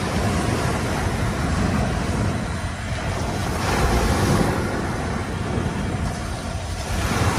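Sea waves breaking and washing up a sandy beach, with wind buffeting the microphone; a wave swells louder about halfway through and another comes in near the end.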